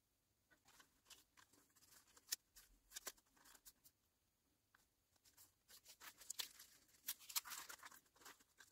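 Near silence with a few faint crinkles and taps as a cellophane bag and a paper cutout are handled, more of them in the last few seconds.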